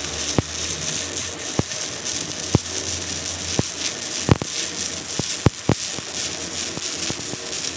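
Stick-welding arc burning on the broken end of a truck rear axle at its flanged hub, laying weld metal: a steady crackling hiss broken by sharp pops about once a second, the loudest a little past halfway.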